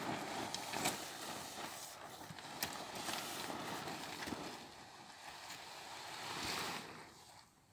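Tent fabric rustling and flapping as a large tent is collapsed by hand, with scattered small clicks and knocks from its pole and fittings.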